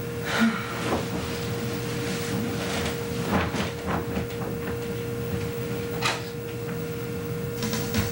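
Bedclothes rustling and a few soft knocks as a person gets out of bed, over a steady hum and hiss.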